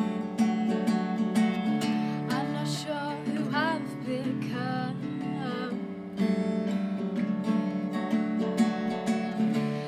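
Tanglewood acoustic guitar strummed in steady chords, with a woman's voice singing a short wavering line in the middle.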